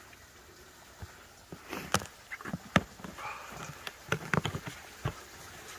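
Footsteps crunching in snow: a run of irregular steps that starts about a second in.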